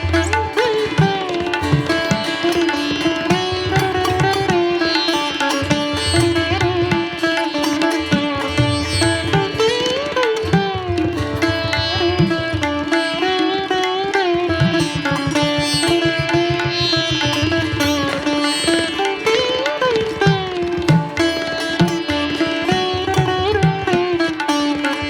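Background music: a wavering plucked-string melody, sitar-like, over a sustained drone and a rhythmic low drum beat.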